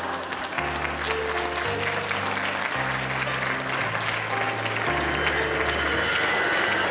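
Audience applauding over instrumental music, whose held low notes change about once a second.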